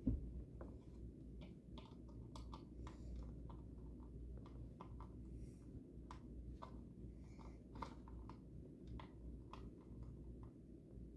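Faint, irregular small clicks and taps as a screwdriver and hands work at the plastic battery compartment of an animated scarecrow prop, over a low steady room hum.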